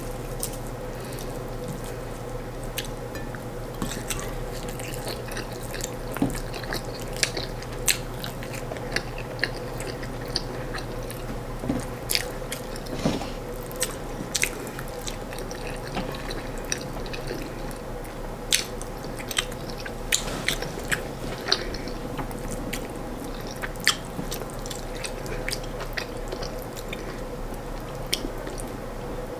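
Close-miked eating sounds: chewing corn fufu and stewed chicken, with frequent short wet mouth clicks and smacks, over a steady low hum.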